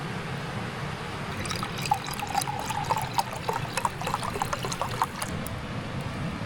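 Homemade pine soda poured into a cup: a pour with many small pops and crackles through the middle few seconds.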